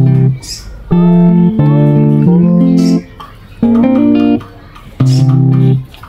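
Background music: guitar chords held in phrases of about a second, with short pauses between them.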